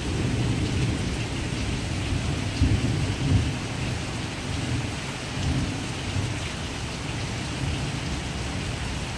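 Thunder rumbling low and long over steady rain, swelling a few times and loudest about two and a half to three and a half seconds in.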